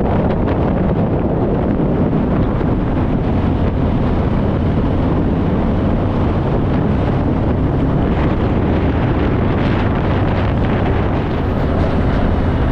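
Steady wind rush over the microphone at speed, over the Harley-Davidson Fat Boy's V-twin engine and road noise while riding on the motorway.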